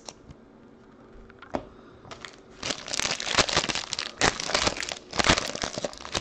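Foil trading-card pack wrapper being torn open and crinkled by hand, with a few small clicks at first and dense crackling from about two and a half seconds in.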